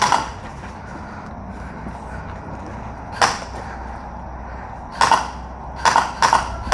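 Airsoft guns firing scattered single shots, heard as short sharp cracks: one at the start, one about three seconds in and three in quick succession near the end, over a steady low rumble.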